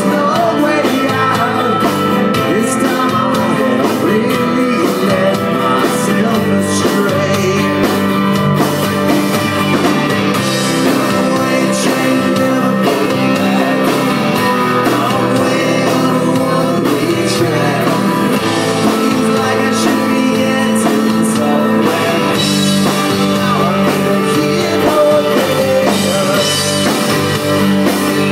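Live rock band playing a mid-tempo song: a male lead vocal over a strummed amplified acoustic guitar, with drums and bass.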